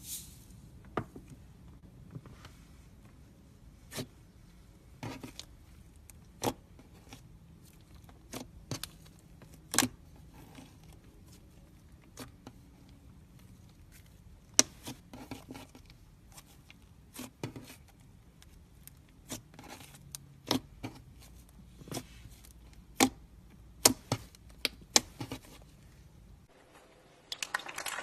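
Slime being squeezed and poked by hand, giving irregular sharp clicks and pops with quiet gaps between them. A denser hissing crackle starts near the end.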